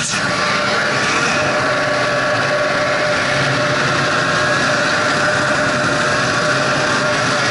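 Snowmobile engine running under way at a steady pitch, with the rush of the machine moving along the trail.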